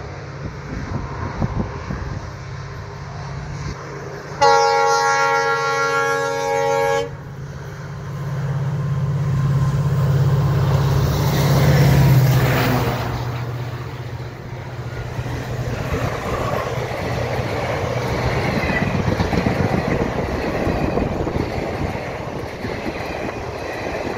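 Passenger train locomotive sounds one long horn blast of about two and a half seconds, then its engine drone swells as it passes close by. The coaches follow with a steady rumble of wheels running over the rail joints.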